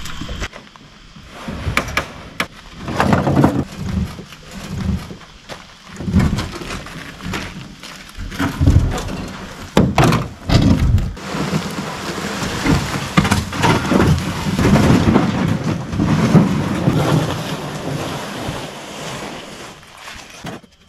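Hollow booming thuds, knocks and scraping from a 12-foot aluminum jon boat being flipped over onto a wheeled cart and hauled over the ground, an irregular run of bangs with rough scraping between them.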